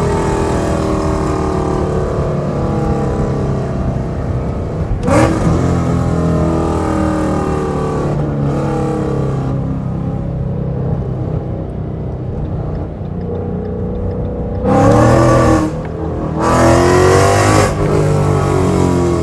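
2015 Mustang 5.0's Coyote V8 through Corsa long-tube headers and a Corsa Extreme exhaust, running steadily while driving. It revs up briefly about five seconds in, then gives two loud pulls of rising pitch near the end with a short break between them, like a hard acceleration through a gear change.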